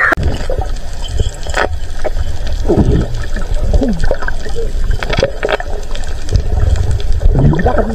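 Water sloshing and gurgling around a camera moving between the surface and underwater, with a heavy low rumble of moving water on the camera's microphone and a few sharp clicks.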